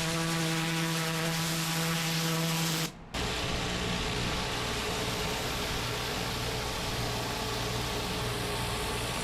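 Pressure washer running and spraying water: a steady engine hum under the hiss of the spray. About three seconds in it cuts off briefly, then resumes with a lower, rougher hum.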